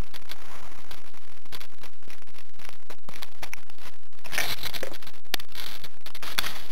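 Harsh crackling and scraping noise on a small camera's built-in microphone, with no clear motor tone. It turns louder and rougher about four seconds in.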